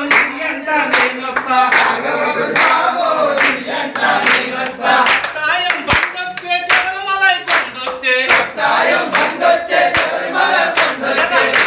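Group of men singing a devotional bhajan together in a small room, with hand claps in time about once every 0.8 seconds.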